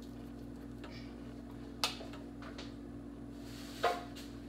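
Spice containers being handled on a kitchen counter: a sharp click a couple of seconds in, then a louder knock with a short ring near the end as a container is set down or picked up, over a steady low electrical hum.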